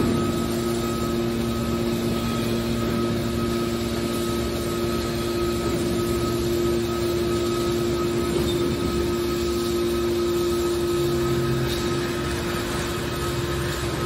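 Hydraulic scrap metal baler running: its hydraulic pump and motor hum steadily while the cylinders swing the lid open.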